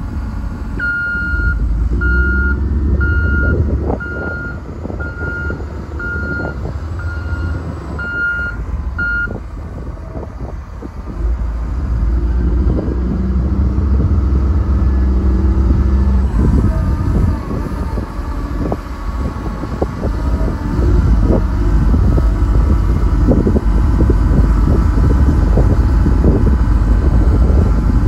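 Cat 962G wheel loader's diesel engine running, with its reverse alarm beeping steadily, about one beep every three-quarters of a second, for the first nine seconds. The engine then grows louder and works harder from about eleven seconds in, as the loader moves and raises its bucket.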